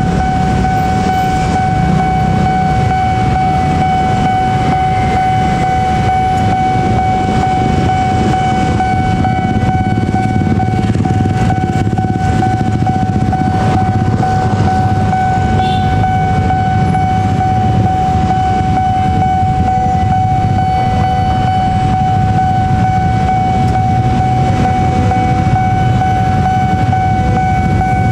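Level-crossing warning alarm sounding one steady, unbroken high tone, over the low rumble of idling cars and motorbikes waiting at the closed crossing.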